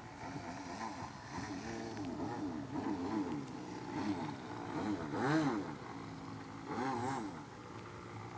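Radio-controlled model Cessna 210's engine and propeller in flight. The pitch rises and falls repeatedly, and it is loudest about five seconds in, with another swell near seven seconds.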